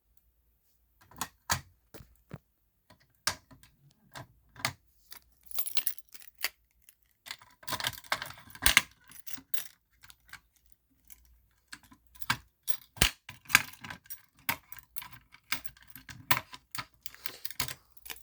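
Keys jangling and clicking while a fire alarm pull station is handled and unlocked with its key: irregular sharp clicks and short metallic rattles, with no alarm sounding.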